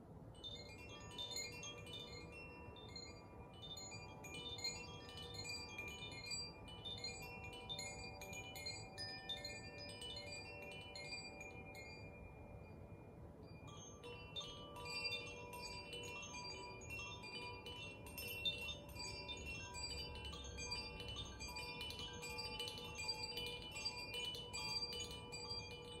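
Handheld Zaphir chime swung by hand, its clapper striking the tuned rods inside in a continuous run of ringing bell-like tones. From about fourteen seconds in, a bamboo Koshi chime rings along with it and the sound grows denser.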